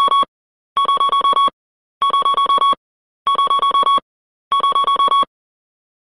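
Platform screen door warning sound, reproduced directly from the electronic sound unit. It plays groups of rapid, identical, high beeps, about nine a second, each group lasting under a second and repeating every second and a quarter.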